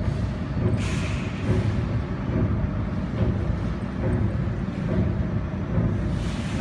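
Steady low hum of a laser welding machine and its water chiller running, with a soft hiss about a second in and another near the end.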